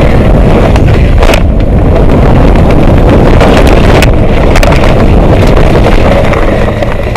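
Mountain bike riding fast down a dirt trail: heavy wind buffeting on the camera microphone over tyre rumble, with a few sharp knocks as the bike rattles over bumps. It dies down near the end.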